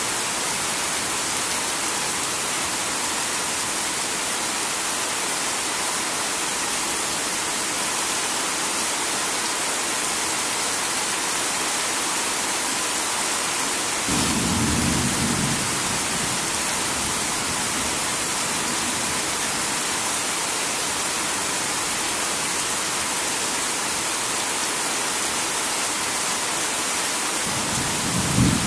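Heavy rain falling in a steady downpour. Two short, low rumbles of thunder come through it, one about halfway and one near the end.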